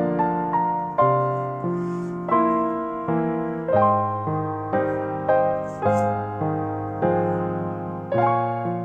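Slow solo piano music: single notes and chords struck roughly once a second, each left to ring and fade.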